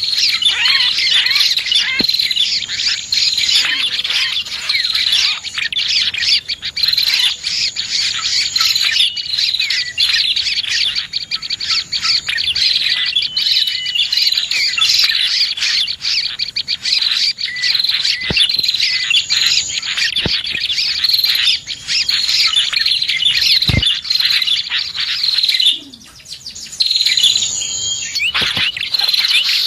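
Dense, rapid chirping and twittering of prinias (prenjak) mixed with other small birds, a bird-lure call recording. The calls run without a break except for a short lull about 26 seconds in.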